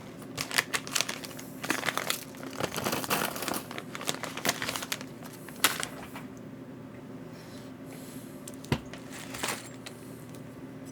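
Crinkling and rustling of plastic packaging and clicks of small parts being handled: busy for about six seconds, then only a couple of single clicks.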